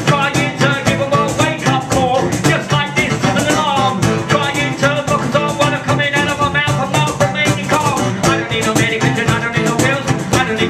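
Live rap vocals over a rhythmically strummed guitar, performed into a microphone.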